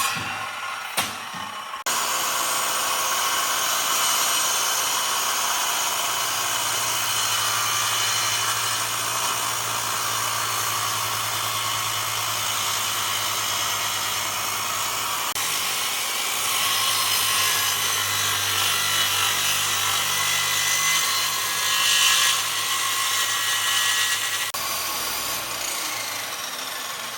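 Power tool working wood: a steady motor hum under a wide hiss, the sound changing abruptly a few times.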